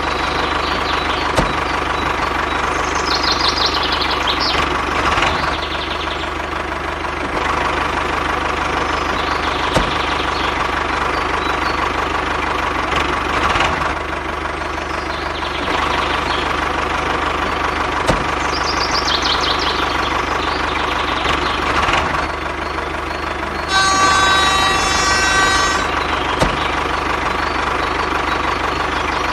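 Small motor of a homemade toy tractor running continuously with a steady whine, its level shifting every few seconds as it works. About three-quarters of the way through, a separate pitched tone sounds for about two seconds.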